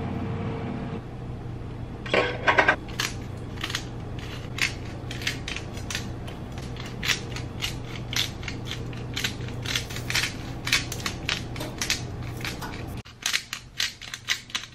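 Black pepper grinder being twisted, giving a quick run of dry, crunching clicks, about three or four a second. A steady hum from a loud room air conditioner runs underneath and drops out near the end.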